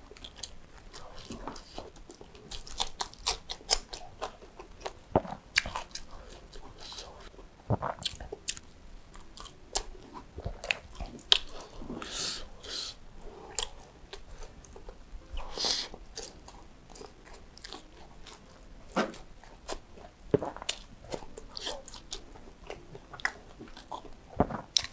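A person chewing fried chicken and rice close to a clip-on microphone: irregular wet mouth clicks and smacks, with a louder bite now and then.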